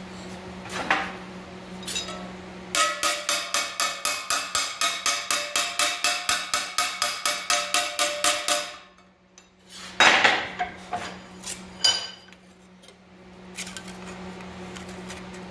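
Hammer blows on a sheet-steel rocker panel patch piece clamped in a bench vise, forming a bead in it by hand. After a couple of light taps, the blows come in a fast steady run of about four to five a second for roughly six seconds, each one ringing. Then, after a short pause, there is one hard blow about ten seconds in and another near twelve.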